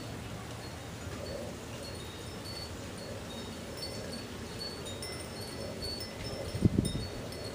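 Faint high tinkling tones at several pitches, ringing out one after another, over a steady low rumble, with a few loud low thumps near the end.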